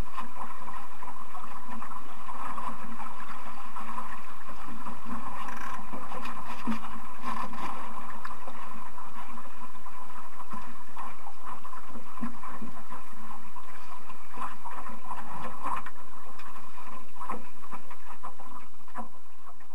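Steady wind and water noise on a camera aboard a sailing dinghy under way, with scattered crackles and splashes, fading out near the end.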